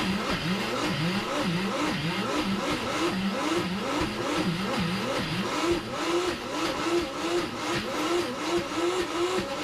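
Vitamix S55 personal blender running on a cashew and coconut dip mixture being worked with the tamper. Its motor pitch swings up and down about twice a second, then holds higher with quicker wobbles in the second half.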